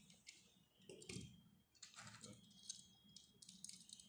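Faint, irregular clicks and light rustling of small die-cast toy cars and their plastic packaging being handled and set down.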